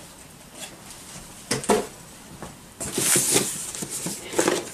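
Cardboard boxes being handled: a couple of sharp knocks, then a cardboard box scraping as it is slid out of a larger shipping carton.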